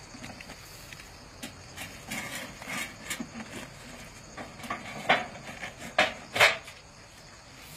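Plastic bucket beetle trap and its metal vane plate being handled: rustling and scraping, then three sharp knocks in the last few seconds.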